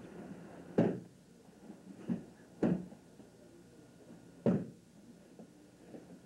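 Four dull thuds of a body and hands hitting padded mats as an aikido partner is thrown down and pinned, the first the loudest, over a steady background hiss.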